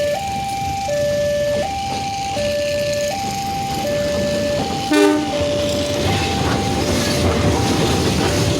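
Railway level-crossing warning alarm sounding its two-tone chime, switching between a lower and a higher tone about every three quarters of a second. A short horn beep about five seconds in, then a low rumble that grows louder.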